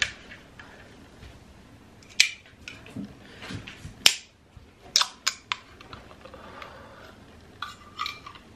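Sharp clicks and taps of an aluminium drink can being handled and opened by its ring-pull; the loudest crack comes about four seconds in, with a quick run of smaller clicks a second later and a few more near the end.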